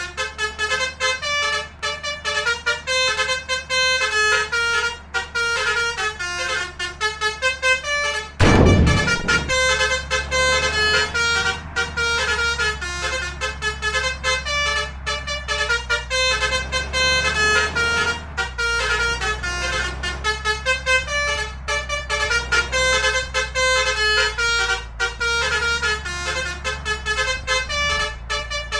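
Telolet-style multi-tone Basuri bus horns playing quick, tune-like runs of notes without a break, several patterns overlapping. About eight seconds in comes a loud deep blast, followed by a steady low engine drone under the horns.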